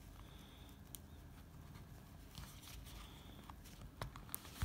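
Faint handling noises: a few small, sharp clicks and taps as a plastic electric shaver casing is handled and worked apart by hand, with more clicks near the end.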